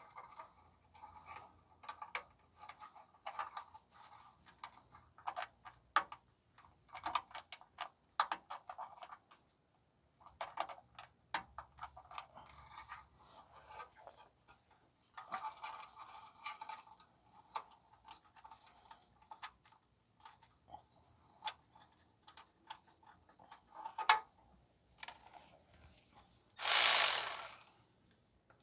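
A hand ratchet clicking in bursts as it tightens a clamp around a loose exhaust heat shield. Near the end there is one loud hiss lasting about a second.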